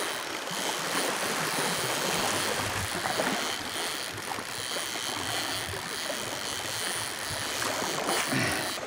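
Surf washing on the beach, making a steady, even noise.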